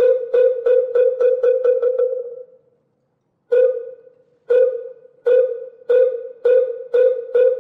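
Moktak (Korean Buddhist wooden fish) struck in rolls: hollow wooden knocks that speed up from slow single strokes to a fast patter and die away. After a short break the strokes start again slowly and quicken toward the end.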